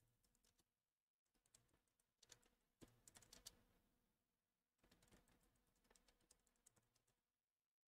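Faint computer keyboard typing, in two short runs of keystrokes with a pause between.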